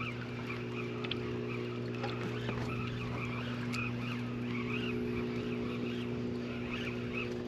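Boat motor running with a steady hum, with faint short chirping calls repeating over it.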